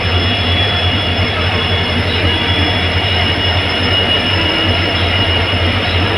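Twin EMD WDP4D diesel locomotives, each with a 16-cylinder two-stroke engine, running with a steady deep hum and a fainter steady high-pitched whine above it.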